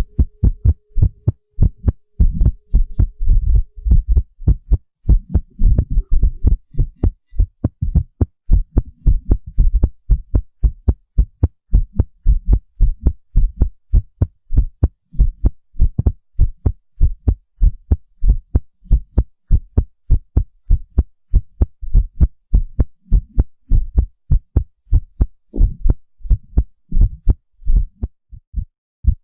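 Human heartbeat sound effect: a fast run of short, low thumps in close lub-dub pairs, beating steadily.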